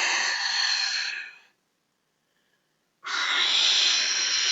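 A person blowing hard through cupped hands, a rushing blast of breath that stops about a second and a half in, then a second blast starting about three seconds in. It is a mouth-made sound effect for a spaceship landing as it enters a planet's atmosphere.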